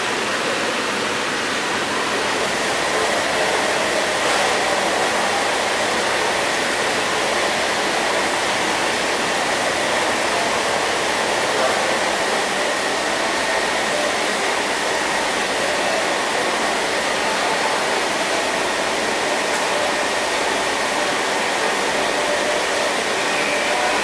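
Steady, even rushing noise with a faint high whine held over it.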